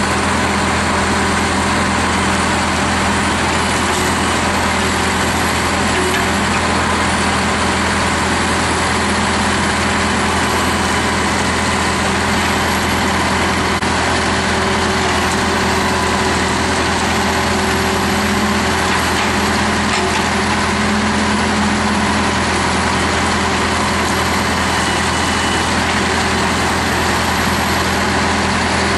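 Caterpillar D6 bulldozer's diesel engine running at a steady, unchanging speed.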